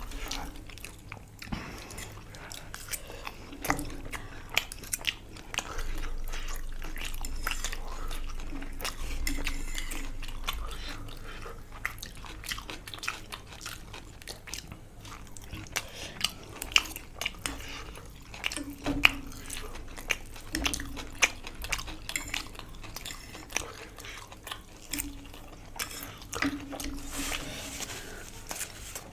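Close-up eating sounds: biting and chewing food, with many short crunchy clicks.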